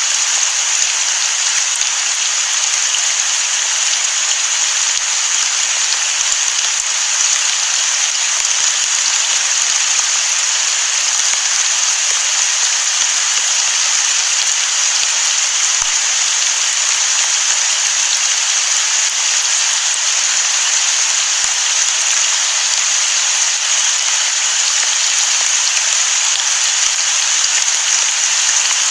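Steady rain: an even, unbroken hiss that neither swells nor fades.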